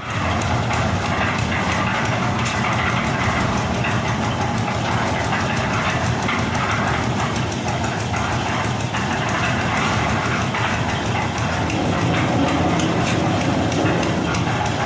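Heavy-duty concrete mixer machine running steadily, its engine note constant under a dense rattling clatter.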